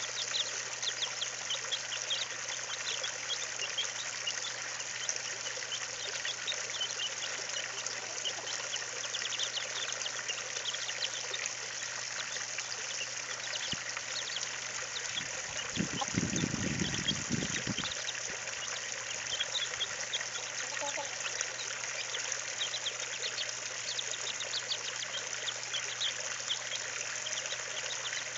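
Young chicks peeping continually, many short high peeps over a steady hiss, with a brief low rumble a little past halfway.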